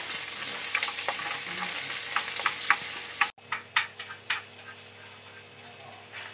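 Chopped onion sizzling in hot oil in a frying pan, stirred with wooden chopsticks that click sharply against the pan many times. About three seconds in, the sizzle turns quieter, with a few more clicks.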